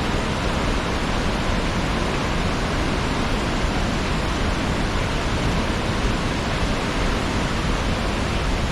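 Large waterfall in monsoon flood, a steady heavy rush of falling water.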